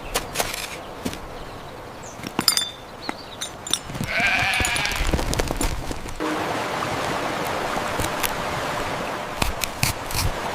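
Sheep-like bleat heard once, about four seconds in, among scattered small clicks and taps. About six seconds in, a steady rushing hiss begins and carries on.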